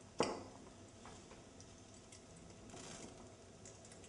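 A single sharp clank of metal cookware just after the start, ringing briefly. After it, diced pancetta frying gently in a pan gives a faint crackle with scattered light ticks.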